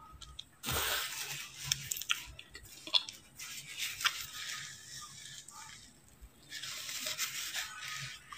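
Close-up chewing of a mouthful of frozen matcha powdered ice: soft, crackly crunching in three spells with short pauses between.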